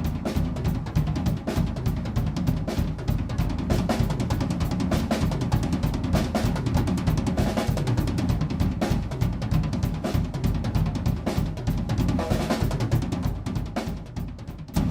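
Acoustic drum kit played in a fast solo: dense bass drum and snare strokes with rimshots. It eases off briefly about a second before the end, then picks up again.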